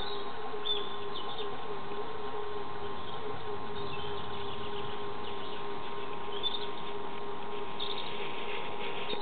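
A steady mechanical hum with a slightly wavering tone, with short bird chirps over it every second or two.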